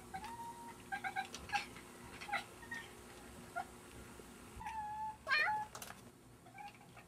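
Domestic cats chirping and chattering while fixed on a fly, the short excited calls cats make at prey they can't reach. A run of quick short chirps is followed a little past four and a half seconds by a longer call, then a louder wavering meow.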